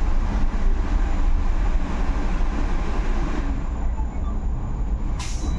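Steady low rumble of a Solaris Urbino 18 IV electric articulated bus in motion, heard from inside the cabin: tyre, road and body noise with no engine note. A faint high whine comes in after about four seconds, and a short sharp noise burst sounds near the end.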